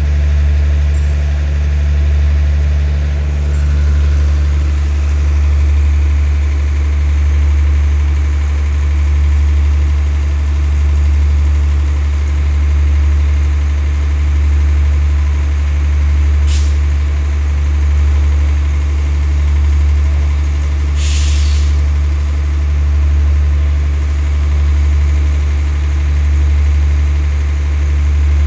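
Diesel engines of a standing State Railway of Thailand passenger train idling with a loud, steady low hum that swells and fades about every two seconds. Two short hisses of compressed air cut in over it, one about halfway through and a longer one, about a second, some five seconds later.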